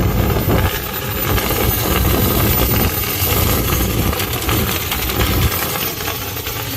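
Dryer-vent cleaning attachment on rods switched on and running steadily inside the vent: a loud mechanical rush with a thin high whine.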